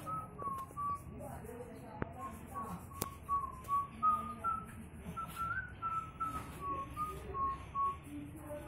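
A person whistling a tune: a single clear pitch stepping up and down through short notes, with a couple of faint clicks.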